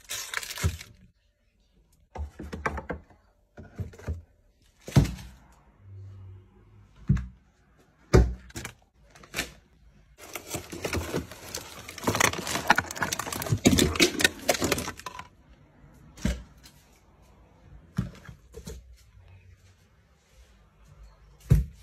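Kitchen handling noises: scattered knocks, thuds and sharp clicks as things are moved around, with a dense continuous stretch of noise lasting about five seconds in the middle.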